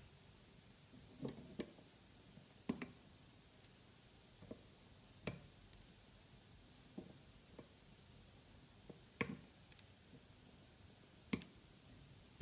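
Quiet, irregular small clicks and taps, about a dozen spread unevenly, from hands handling small metal tools and the helping-hands clamp that holds the circuit board.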